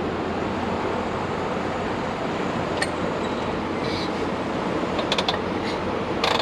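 Steady rushing noise of a large drum fan blowing. A few light clicks and knocks come in the second half, the loudest near the end, as the motorcycle is handled.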